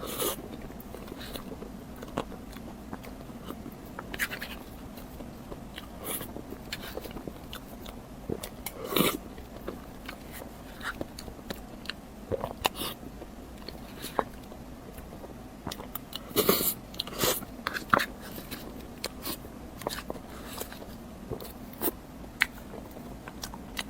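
Close-miked eating of a crepe towel roll cake: bites and chewing with irregular small mouth clicks, and a few louder bites about nine seconds in and again around the sixteen- to eighteen-second mark.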